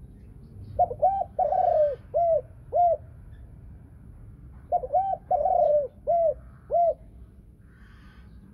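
Thai-strain spotted dove hen with a 'thổ sấm' voice cooing twice. Each phrase is two short coos, one longer drawn-out coo, then two clear short closing coos.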